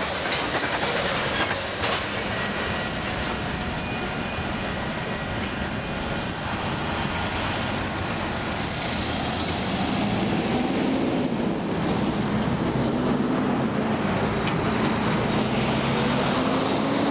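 Loaded covered hopper cars of a long freight train rolling past, the wheels clicking over rail joints with a few sharp clicks early on. As the last cars go by and the train moves away, a steady rumble with a wavering low hum carries on.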